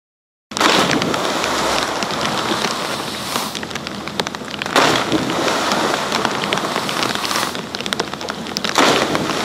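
Churning, aerated water in a ski water-jump pool: a steady rushing hiss, like heavy rain, that starts abruptly about half a second in, with louder surges about a second in, near five seconds and near the end.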